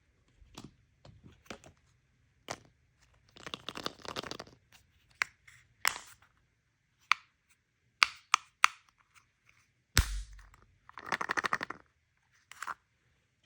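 Hands unboxing toys: sharp clicks and taps of plastic pieces and packaging, two spells of crackly crinkling, and one heavier thump about ten seconds in.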